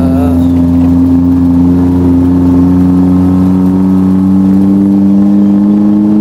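Jeep engine pulling uphill, heard from inside the open-top jeep. Its steady drone over a low rumble rises slowly in pitch as it climbs.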